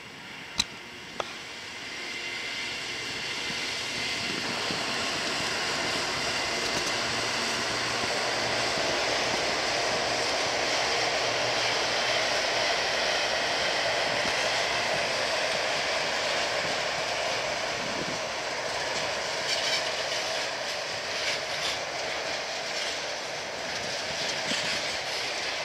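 Loaded freight train rolling past: a steady noise of steel wheels on rails that builds over the first two seconds and holds. There are two sharp clicks right at the start and uneven clattering in the last several seconds.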